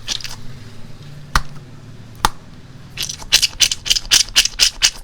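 Crunchy slime being squeezed and worked by hand: two sharp clicks, then from about three seconds in a quick run of crackling crunches, about five a second.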